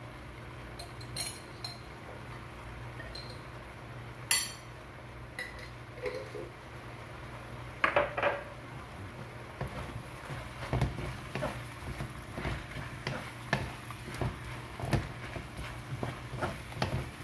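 Spatula knocking and scraping against a metal wok while shrimp are stirred: a few sharp clinks in the first half, then frequent short taps from about halfway on, over a steady low hum.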